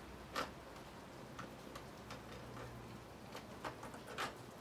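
A few separate sharp clicks from the chain brake of a Coocher 62cc chainsaw being worked by hand, the clearest about half a second in and another near the end. The brake is stiff and locks up very hard.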